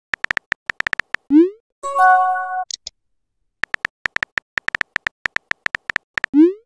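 Texting-app sound effects: a quick run of keyboard tap clicks as a message is typed, a short rising pop as it is sent, then a brief electronic chime. After a short silence, a second run of typing clicks ends in another rising pop near the end.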